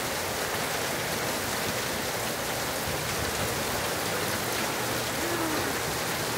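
Heavy wind-driven monsoon downpour: a steady, dense hiss of rain pouring down and pelting the ground and surroundings.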